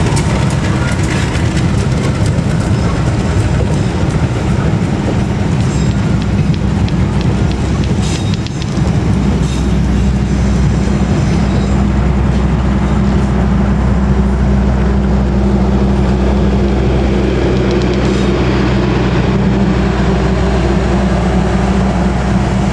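KAI diesel-hauled passenger train running past close by: locomotive and coaches rolling along the rails in a loud, steady rush of noise. About nine seconds in, a steady low drone becomes stronger.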